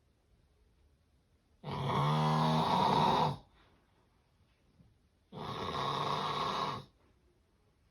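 A sleeper snoring: two loud snores about a second and a half each, roughly three and a half seconds apart, with quiet breathing pauses between. The first carries a low buzzing rattle. The recording is presented as the snoring of severe sleep apnea.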